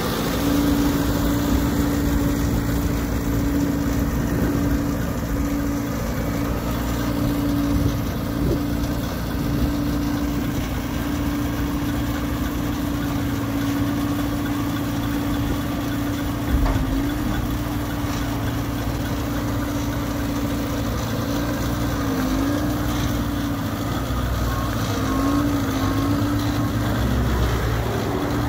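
Elgin Pelican street sweeper running steadily, its engine and hydraulics giving a constant drone with a held whine, while the gutter broom turns and the dump hopper is raised. The whine wavers in pitch several times in the second half, and there is one brief thump partway through.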